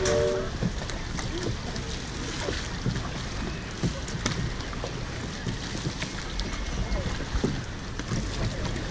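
Many wooden canoe paddles stroking through the water, an irregular run of splashes and knocks from a crew of paddlers pulling together.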